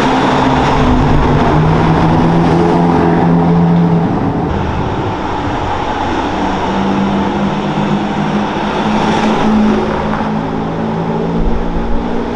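Supercar engine running hard at high revs, its note holding steady for a few seconds at a time and shifting in pitch about four seconds in.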